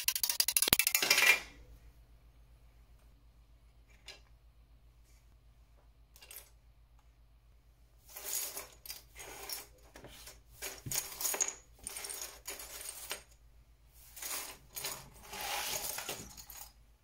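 Music fades out about a second in. After a quiet stretch, loose plastic model-kit parts and sprue clatter and slide across a cutting mat in a run of irregular rattles and rustles as they are swept up by hand, over the second half.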